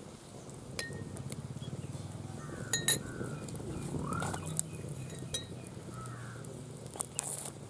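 Sharp metallic clinks of cooking utensils, a few scattered and a cluster near the end, with short bird calls now and then behind them.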